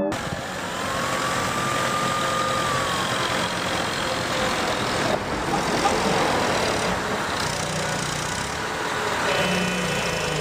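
A truck engine sound effect running steadily, with a faint gliding tone in the first few seconds.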